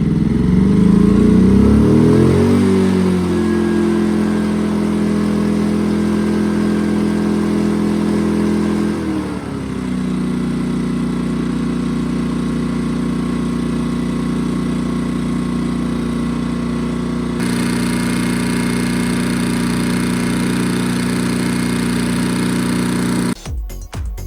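A-iPower portable inverter generator's Yamaha-built engine running after starting: it revs up over the first couple of seconds, then runs steadily. About nine seconds in its speed drops to a lower steady run. It now keeps running because its low-oil shutdown no longer trips once the oil has been topped up.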